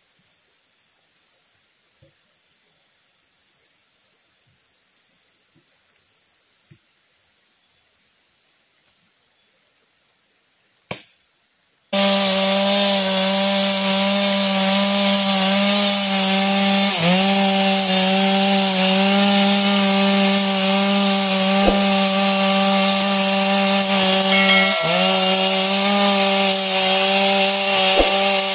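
For about twelve seconds there is only a faint steady high-pitched whine and one sharp click. Then a Stihl chainsaw comes in suddenly and runs at high, steady revs as it rips along a manglid log, its pitch dipping briefly twice as the chain bogs under load and recovers.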